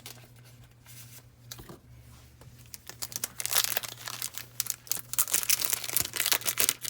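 A foil Yu-Gi-Oh Burst of Destiny booster pack wrapper being torn open and crinkled, starting about three seconds in after a few light handling clicks.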